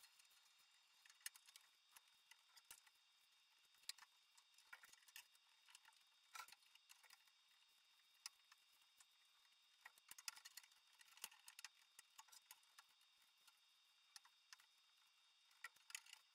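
Near silence, with faint, scattered light clicks and taps of wooden lamination strips being handled and laid into a bending jig for a glue-up, coming more often in the second half.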